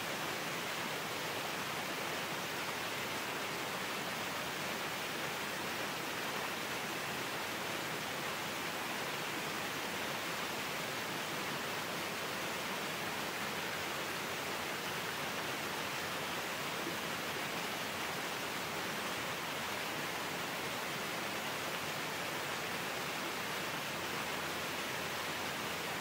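Small waterfall splashing down onto rocks, a steady even rush of falling water.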